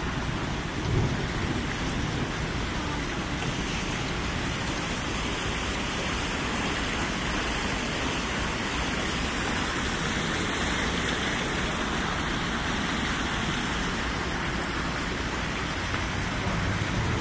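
Heavy downpour: a steady hiss of rain falling on surfaces.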